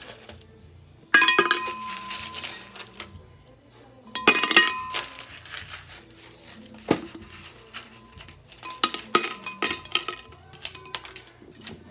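Ice cubes clattering onto a plate from a refrigerator's ice dispenser set to cubed. The clatters come in bursts with a short ring from the plate: about a second in, about four seconds in, once near seven seconds, and a longer run near the end.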